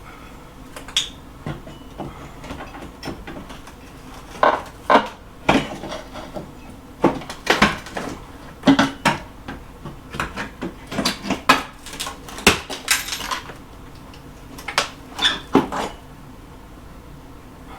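Irregular metallic clinks and knocks of hand tools working on wall framing, a scattered run of sharp strikes that stops about two seconds before the end.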